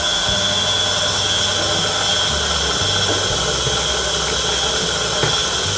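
KitchenAid tilt-head stand mixer's electric motor running steadily, its beater turning through a thin flour, sugar and water batter in the steel bowl, with a faint high whine over a low hum.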